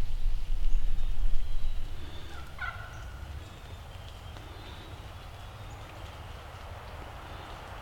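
A wild turkey gobbler gobbles once, a short rattling call, about two and a half seconds in. A low rumble underlies the first two seconds.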